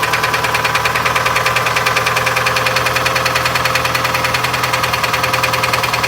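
Car engine idling with a rapid, even knock from its bottom end: rod knock, the sign of connecting-rod bearings worn loose by oil starvation.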